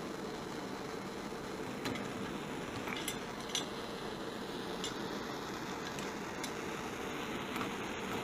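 A few light, sharp metallic clinks and taps, scattered irregularly over a steady background hiss.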